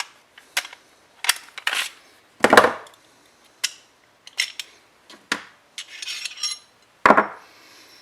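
Glock 17 pistol being taken apart by hand: a string of sharp metallic clicks and clacks as parts slide and knock, with a short rattle near six seconds and two louder clacks about two and a half and seven seconds in.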